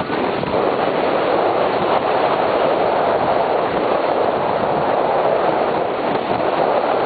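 Steady rushing of wind and water aboard a trimaran under sail: wind on the microphone over water running past the hulls.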